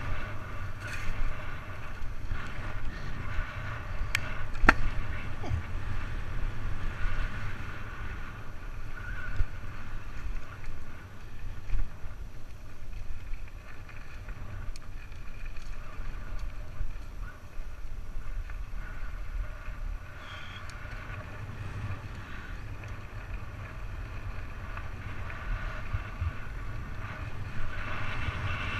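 Lapierre downhill mountain bike descending a dirt trail, heard on an action camera: steady wind rumble on the microphone and tyres rolling over dirt, with a few sharp knocks about four to five seconds in. The noise eases somewhat in the second half as the bike runs out onto smoother gravel track.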